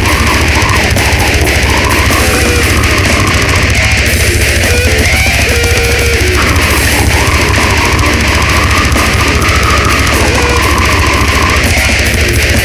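Brutal death metal demo recording: heavily distorted electric guitars playing a riff over dense, rapid drumming with constant cymbals, loud and unbroken.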